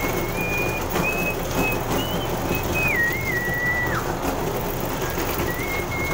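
A whistled tune, a string of held notes stepping up and down with a wobbling dip about three seconds in. Underneath is the steady running hum of a motorized dough sheeter's rollers.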